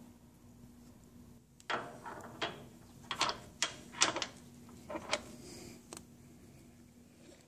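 Sharp metallic clicks and knocks, about a dozen between roughly two and six seconds in, from metal parts being handled and the ring gear being turned inside the open differential of a GM 10-bolt 8.5-inch rear axle.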